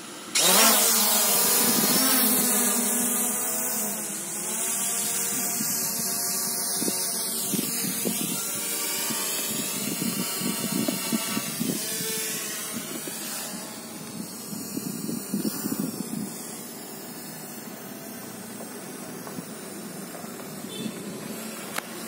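SJRC F11 Pro 4K quadcopter's motors and propellers spinning up suddenly about half a second in as it lifts off, a loud whine that wavers up and down in pitch and grows fainter as the drone flies away.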